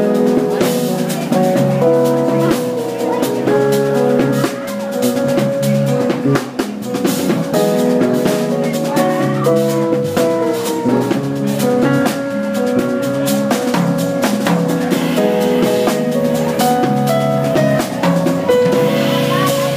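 Live instrumental trio of electric keyboard, electric bass and drum kit playing together: held keyboard chords over a moving bass line, with busy drumming throughout.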